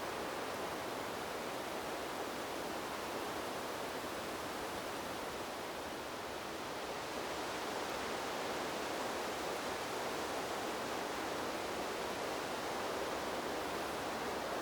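Wind blowing through forest trees: a steady rushing of breeze in the leaves, easing slightly about halfway through and then picking up again.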